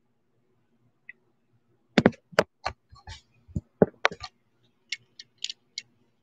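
Handling noise close to the webcam microphone as a pair of beaded hoop earrings on a card is grabbed and brought up to the camera: a quick run of sharp clicks and knocks starting about two seconds in, then a few lighter, higher clicks.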